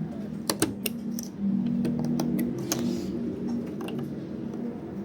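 Scattered sharp clicks and light taps, irregular and several in a row, as wiring connectors on a washing machine are handled and plugged back in, over a low steady hum.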